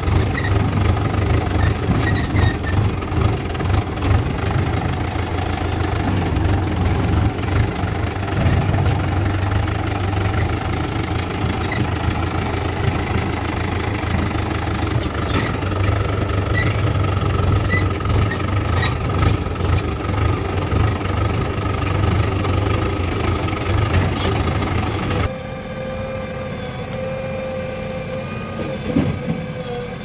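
Swaraj 843 XM tractor's three-cylinder diesel engine running, heard from the driver's seat. About 25 seconds in, the sound drops suddenly to a quieter engine idling.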